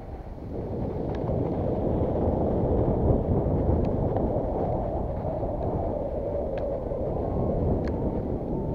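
Wind rushing over the camera's microphone as a skier moves downhill, mixed with the run of skis over snow; it swells over the first two seconds as speed builds, then stays steady.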